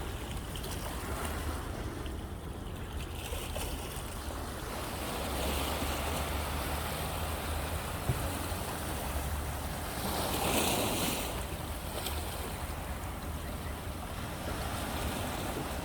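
Sea waves washing onto the shore, with one louder wave breaking and hissing about ten seconds in. A low wind rumble on the microphone lies underneath.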